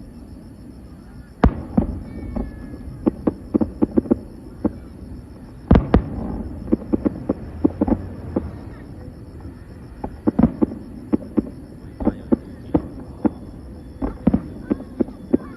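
Fireworks going off in rapid succession: dozens of sharp bangs and pops, with two louder booms about a second and a half in and just under six seconds in.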